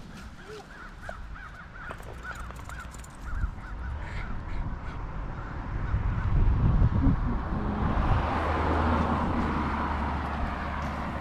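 Wind buffeting the microphone, building about halfway in to a loud low rumble with gusty rushing. Early on, a rapid series of short calls, about three or four a second, sounds over it.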